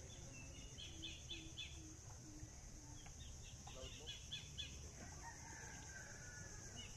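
Faint rural ambience: small birds chirping in quick repeated runs, and a distant rooster crowing once about five seconds in, over a steady high hiss.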